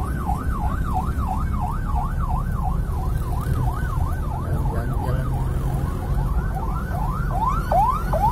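Emergency vehicle siren in a fast yelp, about three rising-and-falling sweeps a second, its sweeps turning sharper near the end. Beneath it runs the steady low rumble of the car and road traffic, heard from inside a car.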